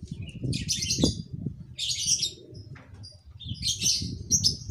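Small birds chirping in three short high-pitched bursts, about a second and a half apart, over a low rumble.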